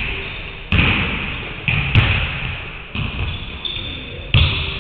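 Basketballs bouncing on a hardwood gym floor: about five separate, irregularly spaced thuds, each ringing on briefly in the large hall.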